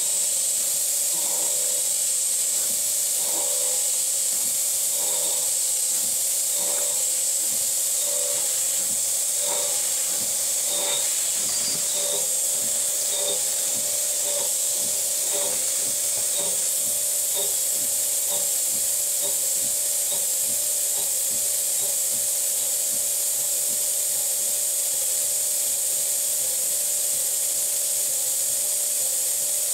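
Novakon Torus Pro CNC mill spindle spinning a steel part against a fixed carbide turning insert (mill turning), giving a steady high hiss and a steady whine from the spindle. Light irregular ticks of the cut and chips come through the first two thirds, then thin out.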